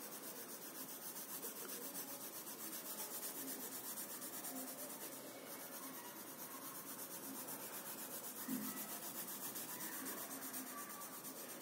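Graphite pencil shading on a colouring-book page, its lead rubbing back and forth on the paper, faint and steady.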